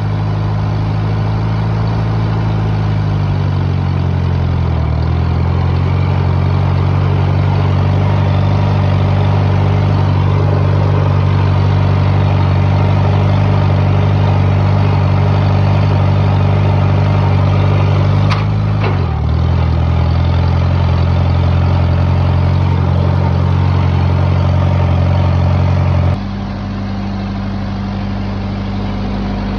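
Old tractor's engine running steadily after its carburetor was cleaned, its speed sagging and recovering briefly twice. About 26 seconds in the sound changes abruptly to a slightly quieter, higher note.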